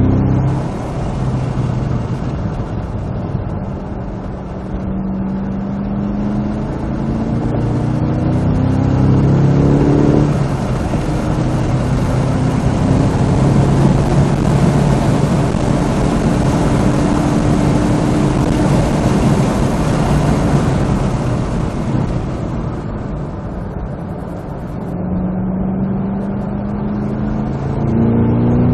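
Supercharged 6.2-litre V8 of a Cadillac CT5-V Blackwing driven hard on track, heard from inside the cabin. The engine note climbs and breaks at a shift about ten seconds in, then runs at high speed with heavy wind noise. Near the end the revs drop and then climb again.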